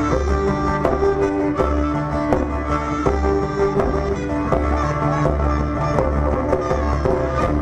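Live medieval folk music: a long wooden wind instrument plays the melody over a plucked string instrument, with drum strokes and a steady low drone beneath. The piece stops suddenly near the end.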